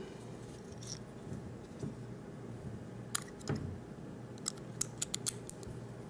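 A rake pick scrubbing the pins of a laminated-steel Master Lock No. 5 padlock, making scattered light metallic clicks that quicken into a run of clicks about four and a half seconds in.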